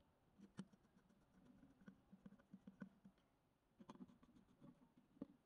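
Near silence, with a dozen or so faint, scattered clicks and taps from a screwdriver and fingers handling a circuit board on its aluminium heatsink.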